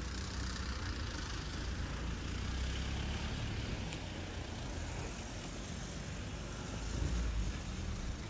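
Road traffic passing: a steady rumble of car engines and tyres, swelling briefly as a vehicle goes by near the end.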